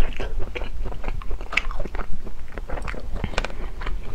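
A person chewing food close to a clip-on microphone, with wet mouth sounds and irregular small clicks.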